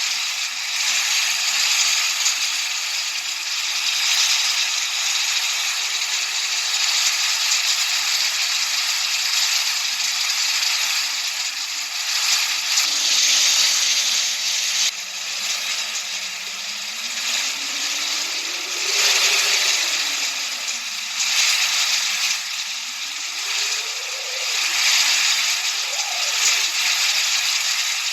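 Continuous masking noise: a steady hiss sitting in the middle and upper range with no bass, over which a faint low tone slowly slides up and down, swinging faster near the end.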